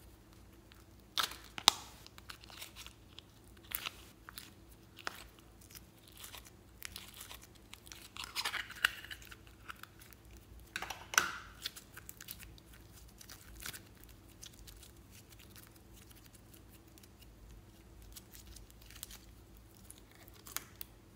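Hands handling and tearing soft clay pieces over a tray of slime and beads: scattered crackly clicks and tearing noises, busiest a little past the middle, with one sharp crackle shortly after.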